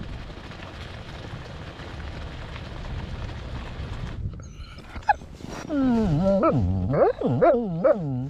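Wind noise for the first few seconds, then a large Jindo-mix dog 'talking': a string of howl-like yowls that swoop up and down in pitch, starting about five seconds in.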